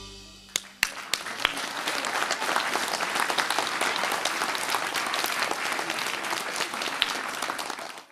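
Audience applauding as the last of the dance music fades out: a few separate claps about half a second in, then steady applause from many hands that cuts off abruptly near the end.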